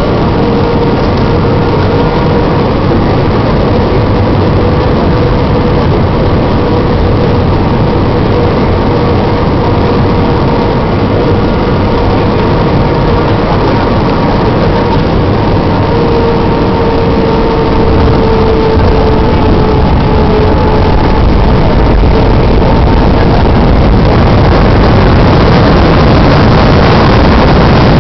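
Cabin noise inside an Airbus A319 during its landing: a steady rush of jet engines and airflow with a held whine that fades about two-thirds of the way through, the noise growing somewhat louder toward the end.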